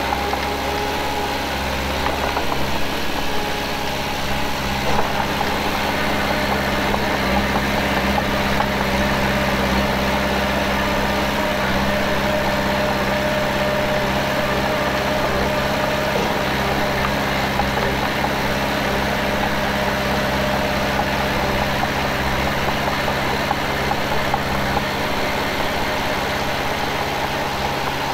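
Diesel engine of heavy earthmoving machinery running steadily, with a faint whine above the engine note.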